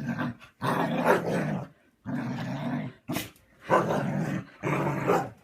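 Husky grumbling, a string of about four drawn-out, growly vocal grumbles with short pauses between them.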